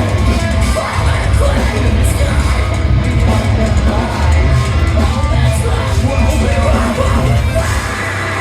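Live band playing loudly, with yelled vocals over heavy bass and drums.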